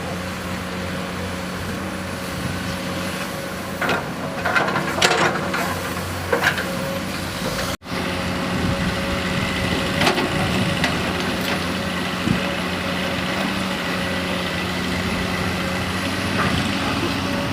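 Excavator's diesel engine running steadily, with several sharp metallic clanks and knocks from the working machine, most of them between about four and seven seconds in. The sound drops out for an instant just before the middle.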